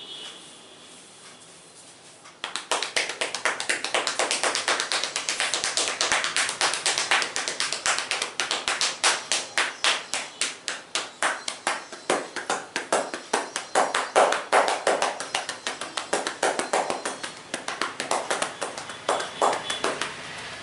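Hands striking rhythmically in a percussive massage, fast taps at about five a second. They start about two and a half seconds in and keep an even pace.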